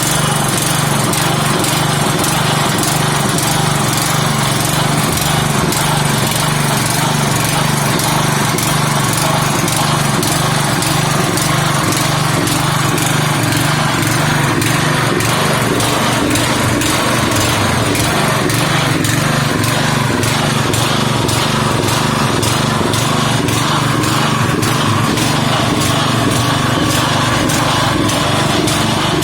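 The small engine of a borepile well-drilling rig with a mechanical top drive, running steadily at a constant speed.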